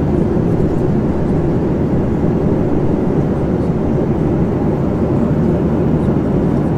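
Steady cabin noise of an airliner in cruise: the even, low rush of the engines and airflow heard inside the cabin.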